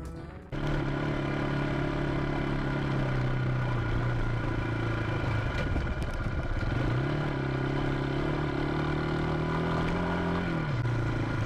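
Ssenda Duro 250 dual-sport motorcycle running along at a steady speed, heard from a camera mounted on the bike, over wind and road noise. The engine note dips and picks up again a little past halfway, then drops near the end as the rider eases off.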